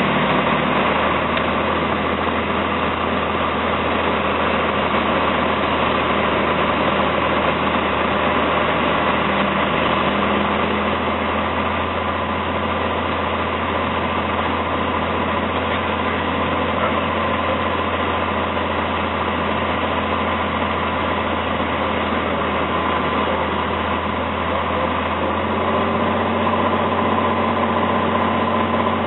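Cessna 182T's six-cylinder Lycoming IO-540 engine and propeller droning steadily, heard inside the cockpit during the landing approach. The low note shifts a little near the end.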